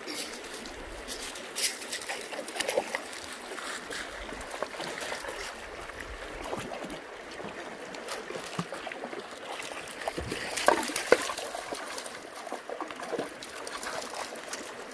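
Shallow rocky creek trickling and flowing over stones, with scattered sharp splashes and knocks, the loudest cluster about two-thirds of the way through.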